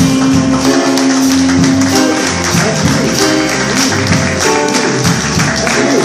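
Live bolero played by a small combo of piano, upright double bass and drum kit, closing the song after the last sung line; a long note is held for the first two seconds, then the piano and bass move on over a steady beat on the cymbals.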